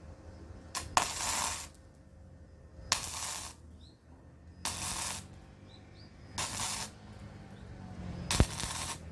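Electric welder making a series of short welds on a greenhouse's steel pipe ridge joint. Five brief bursts of hissing noise, each starting with a sharp click, come roughly every two seconds over a steady low hum.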